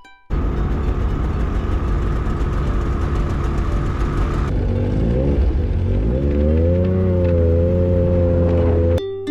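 Snowmobile engines running. After a cut about halfway through, a snowmobile pulls away, its engine pitch rising and then holding steady at cruising speed.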